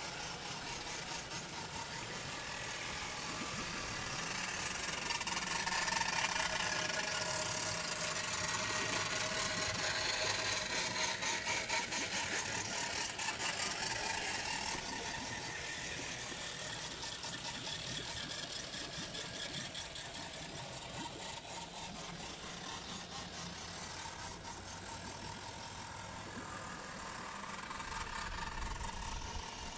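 Canal water rushing past a turning wooden water wheel, with a fast, regular churning from the wheel's paddles. The sound grows louder for several seconds and then fades. A low rumble comes in near the end.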